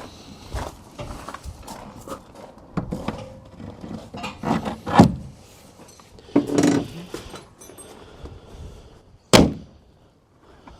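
Clunks and knocks of a Land Rover Series III's door and aluminium door top being handled and fitted, ending with one sharp thud of the door being shut about nine seconds in.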